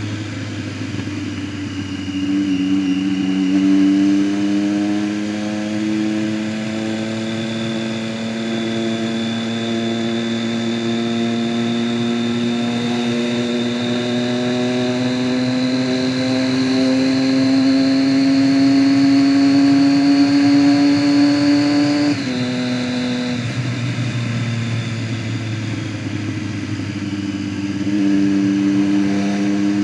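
Motorcycle engine running under way, its pitch climbing slowly and steadily for about twenty seconds, then dropping suddenly and holding lower, with the engine getting louder again near the end.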